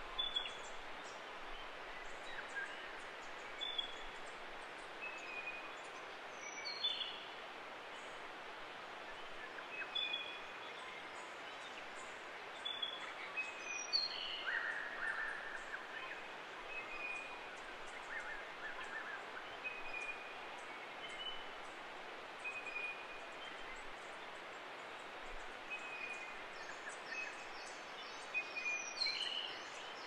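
Forest birds calling over a steady background hiss: many short chirps, twice a sharp whistle falling in pitch, the second followed at once by a brief scratchy call.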